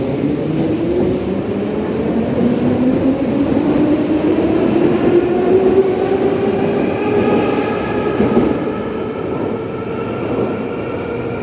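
Novosibirsk Metro 81-717-type ('nomernoy') train running over the track, heard from inside the car. A whine from the traction motors and gearing rises in pitch over the first several seconds and then holds steady as the train gathers speed.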